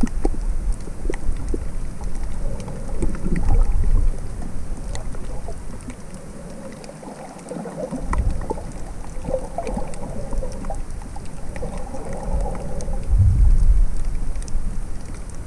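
Underwater sound heard through a GoPro's housing while snorkelling over a coral reef: a low rumble of moving water that swells and eases, loudest near the start and again near the end, with scattered sharp clicks throughout.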